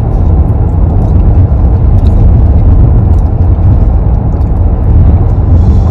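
Steady, deep road noise of a moving car heard from inside the cabin, mostly tyre and road rumble.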